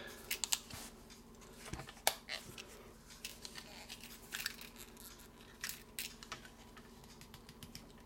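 Leather lighter pouch with a metal Zippo lighter inside being handled: faint leather rubbing and scratching with scattered small clicks, as the lighter is worked into the very snug, stiff new leather.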